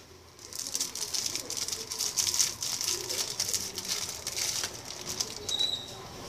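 Clear plastic wrapper and folded paper leaflet crinkling and rustling as they are handled, a dense crackle of small clicks that starts about half a second in and eases off near the end.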